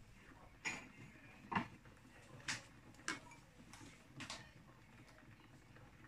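Five light clicks and knocks of kitchenware, about one a second, stopping after four and a half seconds.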